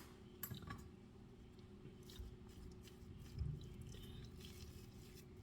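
Faint soft squishing and scraping of a spoon working cold mashed potatoes, with a few light clicks and one brief low thud about three and a half seconds in.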